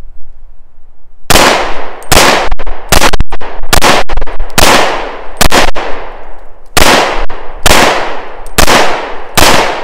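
Llama Max-1 .38 Super semi-automatic pistol firing about ten shots at a steady pace, roughly one every 0.8 seconds, with a short pause after the sixth. The pistol cycles through the string without jamming on full metal jacket ammunition.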